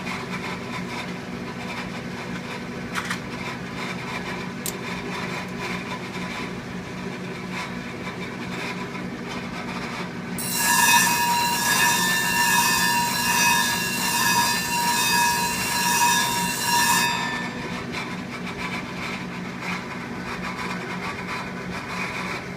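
Clipper-blade sharpening machine running with a steady hum. From about ten seconds in to about seventeen seconds, a loud screeching grind as a clipper blade is pressed against the spinning grit-charged plate.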